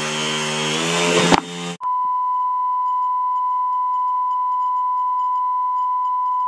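Propellers of a home-built quadcopter, driven by brushless motors at high throttle with the frame held down by hand, whine and whoosh for under two seconds, rising slightly in pitch before cutting off abruptly. A steady, unchanging test-card tone then follows.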